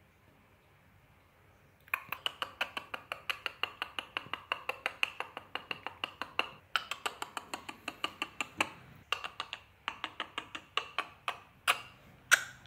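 Rapid chopping: a knife or cleaver striking a cutting board about five times a second, starting a couple of seconds in, with two brief pauses.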